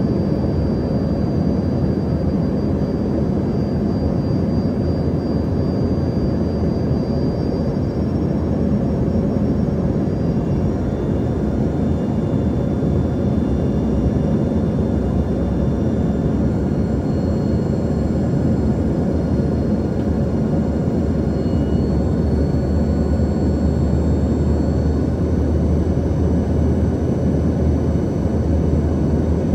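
Steady cabin noise of an Embraer ERJ-145 regional jet, its rear-mounted Rolls-Royce AE 3007 turbofans running with a deep hum and faint high whining tones.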